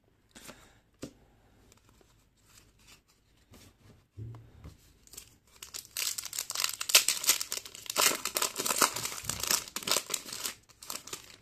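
A foil trading-card pack wrapper being torn open and crinkled by hand: a dense crackling that starts about halfway through and lasts several seconds. Before it come a few faint clicks and a soft thump about four seconds in.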